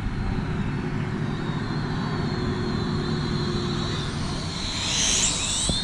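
FLYMAX 2 toy quadcopter's small motors whining in flight, a thin high steady tone over a low background rumble. About five seconds in the whine grows louder and its pitch swings up and down quickly as the drone is steered back in.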